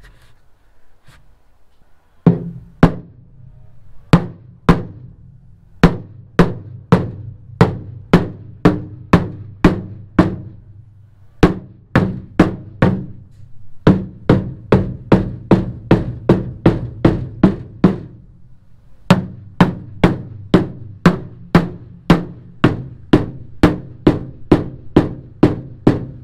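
Drum-heavy music: a steady beat of sharp drum hits, about two a second, over a low bass line, starting about two seconds in.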